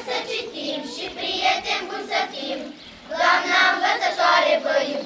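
A group of children singing a song together, with a long held note about three seconds in.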